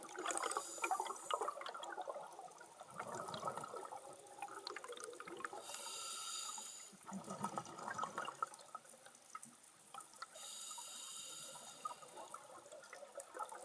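Scuba regulator breathing heard underwater: two roughly one-second hissing inhalations, with bubbling bursts of exhaled air between them.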